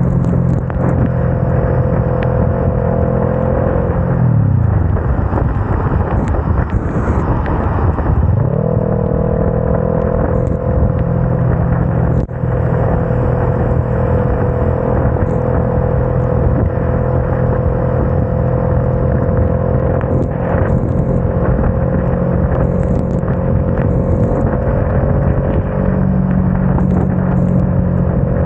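Motorcycle engine running steadily in third gear at highway speed over a rush of wind and wet-road noise. About four seconds in, the engine note sinks as the revs fall, then climbs back to its steady pitch about four seconds later.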